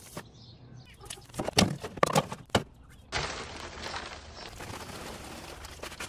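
A few sharp knocks and clunks, then from about three seconds in, soil pouring steadily from a bag into a half whiskey barrel planter with an even rushing hiss.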